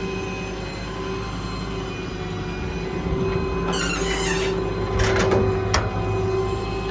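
Steady hum of the Ford F550's V10 gas engine idling, with a short rustling scrape about four seconds in and a few sharp clicks a second later, like door or lock hardware being worked.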